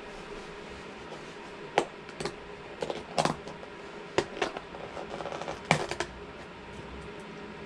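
Clear plastic lid being pried off a plastic takeout container: a series of sharp plastic clicks and crackles over about four seconds, the loudest about two seconds in and again near six seconds.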